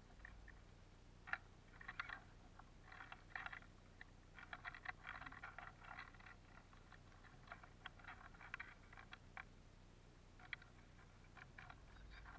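Bullfinches and siskins pecking and cracking black sunflower seeds in a wooden feeder tray: faint, irregular clusters of small dry clicks and rustles, busiest in the middle stretch.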